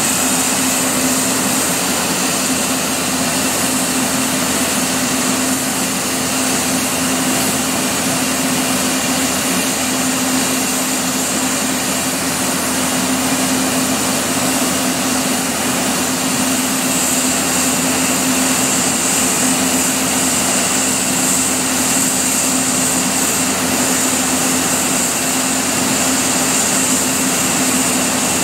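Compressed air hissing steadily from a leaking UL valve under an Indian Railways electric locomotive, the leak that has cut off the locomotive's tractive effort. A steady hum runs underneath.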